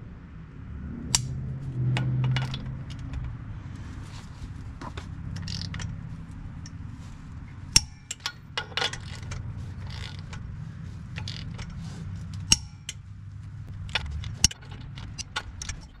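Torque wrench set to 130 ratcheting the lug nuts that hold a wheel spacer to the hub, a run of small metallic clicks. A sharp click sounds each time a nut reaches torque, four times.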